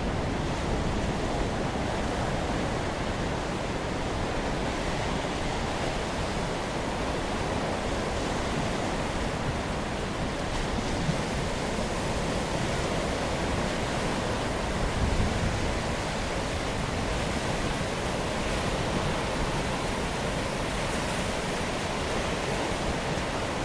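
Storm wind and choppy sea surf as a steady, even rush of noise, with a brief louder low swell about 15 seconds in.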